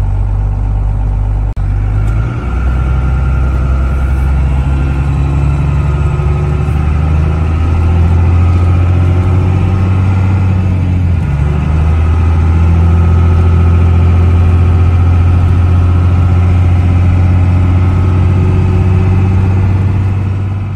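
LLY Duramax 6.6-litre V8 turbodiesel running steadily as the truck drives, heard from inside the cab. Its pitch shifts about two seconds in and again about eleven seconds in.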